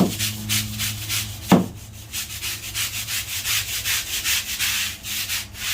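Stiff grout brush scrubbing pre-sprayed tile grout lines in quick back-and-forth strokes, about three a second, loosening the dirt stuck in the grout. Two sharp knocks come near the start and about one and a half seconds in, over a low steady hum.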